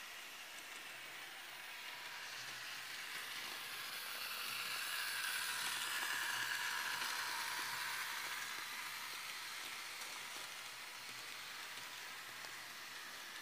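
H0-scale model train, a diesel locomotive pulling wagons, running along the track with a steady whir of its motor and wheels, growing louder as it passes close by about halfway through and then fading.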